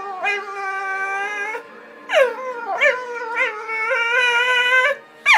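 Staffordshire bull terrier howling in long, drawn-out 'singing' notes. Each note starts high, slides down, then holds with a slight waver. There are two such notes with a short break between them, and a third begins near the end.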